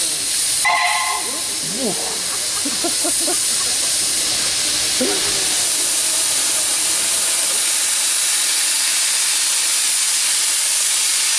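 Steam hissing steadily and loudly from the LB&SCR A1 'Terrier' tank engine Fenchurch. A short whistle toot sounds about a second in.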